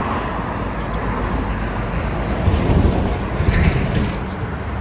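Road traffic noise: a vehicle going by, swelling to its loudest around the middle.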